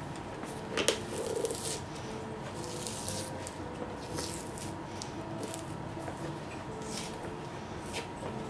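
Leather sole of a Goodyear-welted shoe being levered and torn away from the welt with pincers: a run of short scraping, tearing noises, with one sharp snap about a second in. Faint background music underneath.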